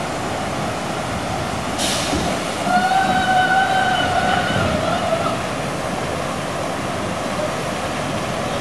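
Steady rushing noise of a water park around the loop slides. A short hiss comes near two seconds in, and from about three to five seconds a long, slightly wavering held tone sounds over it.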